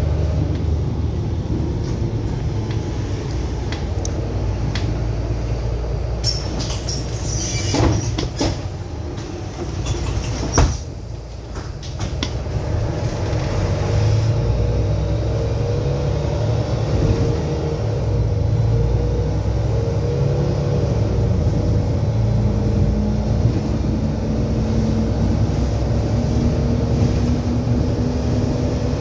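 Inside a Mercedes-Benz Citaro city bus under way: steady engine drone and road rumble, with interior rattles a few seconds in and a sharp knock about ten seconds in, then a short lull. Near the end a steady tone rises slowly as the bus picks up speed.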